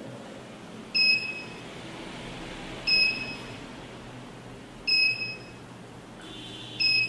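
Active 207 burglar alarm panel's buzzer giving short, high beeps at a regular pace, four times about two seconds apart.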